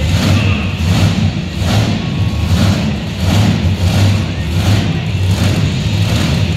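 Monster truck engine running loud, its revs rising and falling in quick repeated pulses as the truck turns on the dirt.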